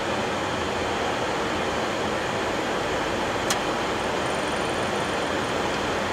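Flight-deck noise of a Boeing 737-800 on its takeoff roll at takeoff thrust: a steady mix of CFM56 engine noise, airflow and runway rumble. A single sharp click about three and a half seconds in.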